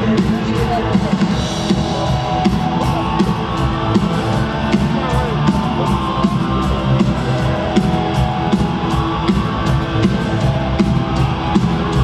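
Live rock band playing in an arena: electric guitar and drum kit with a steady beat, heard from the stands through the hall's PA.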